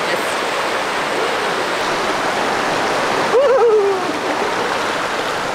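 Steady rush of a fast-flowing creek close by. About three and a half seconds in there is a short wavering vocal sound from a person.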